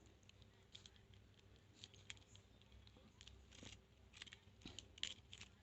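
Faint, irregular metallic clicks and scrapes of a lock pick and tension wrench working in the keyway of a transparent practice padlock.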